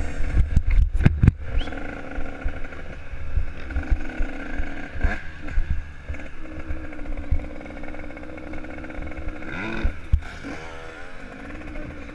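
Dirt bike engine running at low revs, with heavy thumping from wind or bumps on the helmet-mounted microphone in the first second or so. The engine revs up briefly about two seconds before the end.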